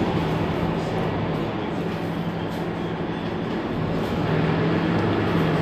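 Mercedes-Benz Citaro C2 city bus engine idling at a stop, a steady low hum that grows a little louder about four seconds in.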